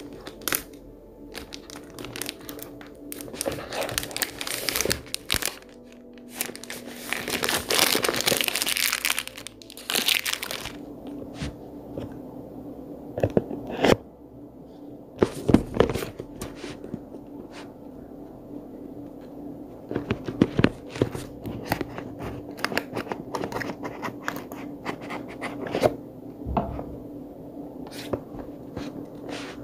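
Plastic shrink wrap being torn and crinkled off a smartphone box, most heavily in the first ten seconds. This is followed by scattered taps, knocks and rubbing as the cardboard box is handled and its inner box is slid out of the sleeve.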